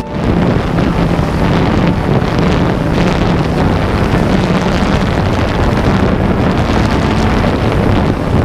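Camera drone's motors and propellers humming steadily in flight, with wind rushing over the on-board microphone.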